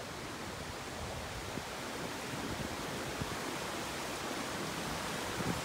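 Cascading water of Little Amicalola Falls rushing steadily, growing slightly louder toward the end, with a few soft low knocks near the end.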